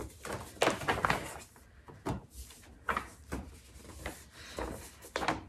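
Sheets of printed paper rustling as they are unfolded and handled, in a series of short rustles.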